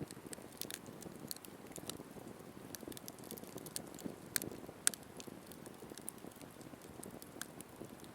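Wood campfire crackling: irregular sharp pops and snaps over a low, steady rustle of burning wood, with the loudest pop about five seconds in.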